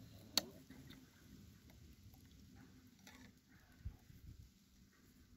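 Faint clinks and taps of a spoon and a plastic jug against a steel bowl as greens are mixed, with one sharp click about half a second in and a dull thump near four seconds.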